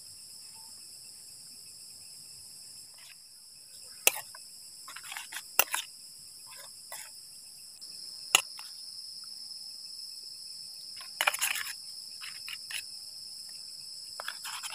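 Night insects chirring in a steady high-pitched chorus, with scattered clinks and scrapes of a metal fork against an enamel bowl of noodles.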